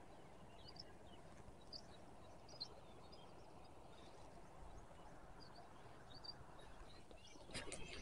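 Near silence: faint outdoor ambience with a few faint bird chirps scattered through it. Near the end a louder patch of noise starts.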